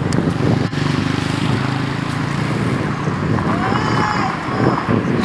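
A motor vehicle's engine running steadily, with wind buffeting the microphone and a faint voice about four seconds in.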